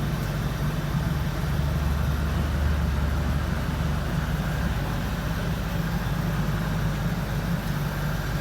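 An engine idling steadily, with an even low hum that neither revs nor stops.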